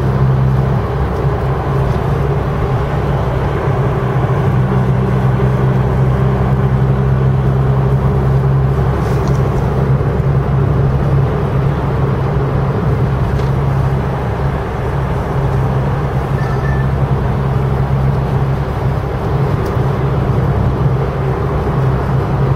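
Cabin noise inside a Corsa B 1.2 16V cruising on a motorway: the engine's steady drone with tyre and road noise. A low hum eases for a few seconds in the middle, then comes back.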